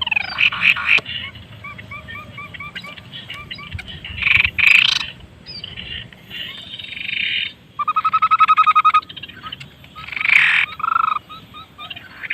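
Tepus babbler singing: a run of short repeated whistled notes, rapid trills, and harsh chattering bursts, with a long fast trill about eight seconds in.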